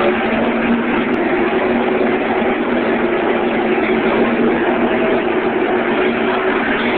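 Pack of race cars running at full throttle past the grandstand at the green flag: a loud, steady drone of many engines blended together, their pitches drifting slightly.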